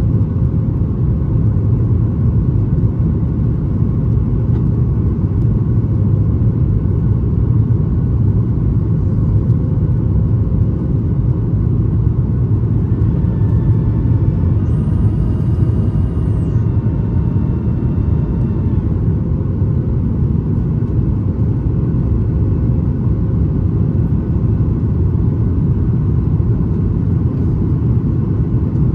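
Boeing 737 MAX 8 cabin noise heard from a window seat: the steady, deep rumble of the CFM LEAP-1B engines and airflow in flight.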